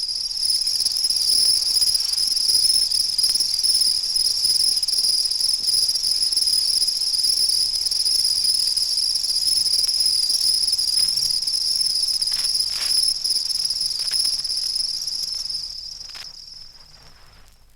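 House crickets stridulating: a steady, high-pitched chirring that fades out near the end.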